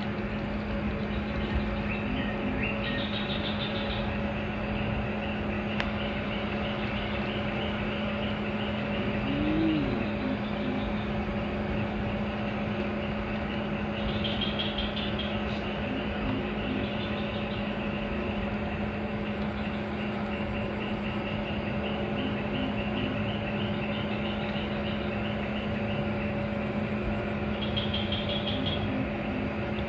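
Steady outdoor background: a constant low hum under an even noisy haze, with faint chirps repeating in short trains over it.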